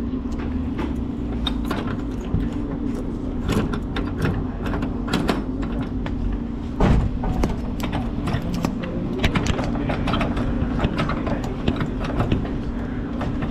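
Clicks and rattles from hands working inside an open snack vending machine, with one louder knock about seven seconds in, over a steady low hum.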